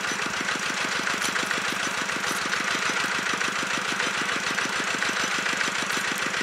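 Engine of the pump draining the pond, running steadily with an even beat about ten times a second.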